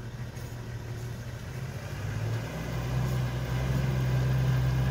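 Toyota Land Cruiser safari vehicle's engine running at low revs as it crawls along a muddy track, growing louder as it comes closer. The engine note steps up slightly about halfway through.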